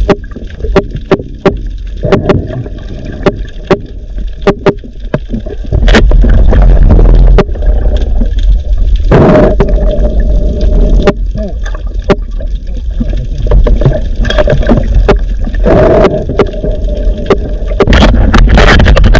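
A caught gurnard-type fish with wing-like fins calling: a string of short, sharp knocks ("tak tak tak") and two longer croaking calls about nine and sixteen seconds in. A loud low rumble of handling noise comes around six seconds in.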